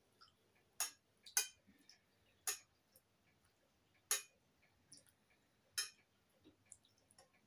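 A metal spoon clinking against a steel pot and a bowl as food is spooned out: a handful of short, separate clinks, roughly a second or so apart.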